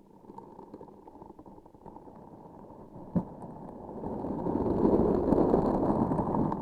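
Close-miked sticky, crackly handling noise from a transparent sticky object being pressed and squeezed. There is a sharp click about three seconds in, and the sound gets louder and denser over the last couple of seconds.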